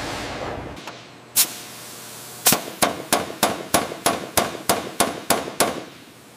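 Pneumatic rivet gun driving rivets into aluminium aircraft skin: one sharp metallic strike, then a run of about eleven ringing strikes at roughly three a second.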